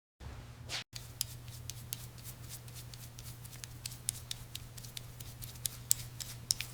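Scattered small clicks and light taps of hand work on metal parts, over a steady low hum, with a short swish under a second in.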